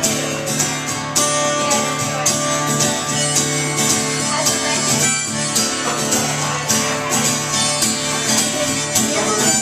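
Live country band playing the instrumental intro of a song: guitars over a steady drum beat.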